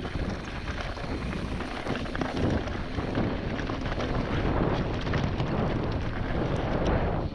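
Mountain bike on a fast downhill run: wind rushing over the microphone, with tyre noise and many small knocks and rattles from the bike over rough ground.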